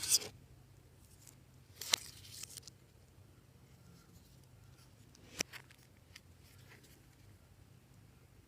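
Clear slime being mixed and squished by hand: a few short, sticky clicks and crackles, one near the start, a crackly cluster about two seconds in and another click past the middle.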